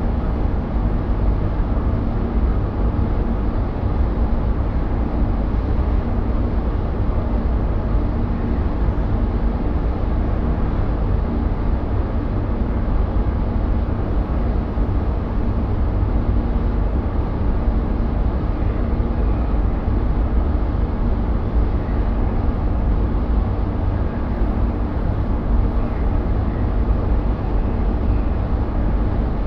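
Powder-coating spray booth running: a steady, low rushing roar of the booth's air extraction, with faint hum tones, while the powder gun sprays.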